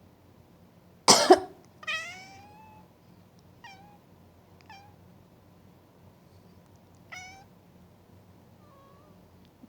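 A person coughs twice sharply, and a house cat answers at once with a long, falling meow, then several short, clipped meows over the following seconds. The cat's cries are its upset reaction to the coughing.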